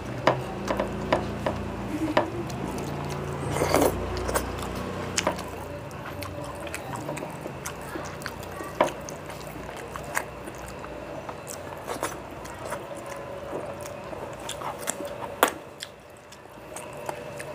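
Fingers mashing and mixing cooked rice with curry on a plate, making soft wet squishing with scattered sharp clicks.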